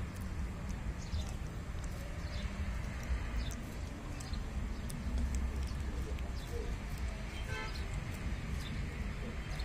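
Outdoor background with a steady low rumble of wind on the microphone and short, faint bird chirps throughout. A brief rapid rattle comes about seven and a half seconds in.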